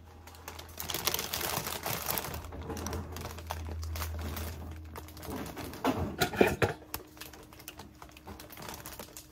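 Dense crackling and clicking of a plastic flower sleeve being handled beside a glass vase, with a low hum in the first half and a few louder knocks about six seconds in.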